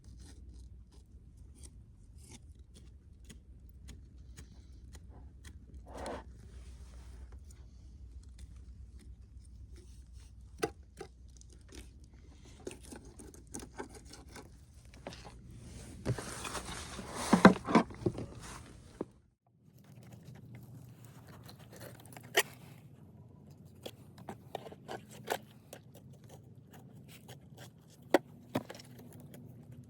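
Crappie being cleaned with a knife: scattered scrapes, clicks and crunches of the blade on scales, skin and bone, with a louder rough stretch of scraping a little past halfway.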